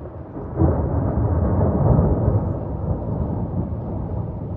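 A thunderclap breaking about half a second in, then a long low rolling rumble that is loudest around two seconds and slowly dies away.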